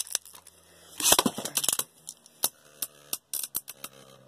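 Two plastic Beyblade Burst spinning tops battling in a stadium: a brief loud rasping rip about a second in, then a steady run of sharp clicks as the tops strike each other and the stadium wall.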